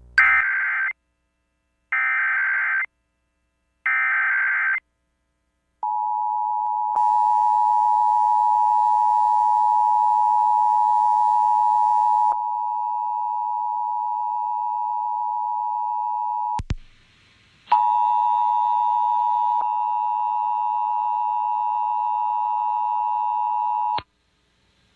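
Emergency Alert System test signalling: three short bursts of warbling SAME header data about a second apart, then the EAS two-tone attention signal (853 and 960 Hz), held steady for about eleven seconds. The tone cuts off suddenly, and after a brief gap the attention signal sounds again from another station's recording for about six seconds, ending abruptly.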